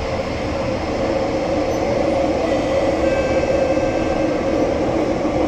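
Interior of an SMRT CT251 metro train running along the track: a steady rumble of wheels and car body that slowly grows louder, with a faint thin whine from about halfway through.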